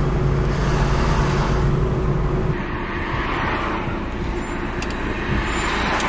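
Car on the move: steady engine and road noise, a continuous low rumble.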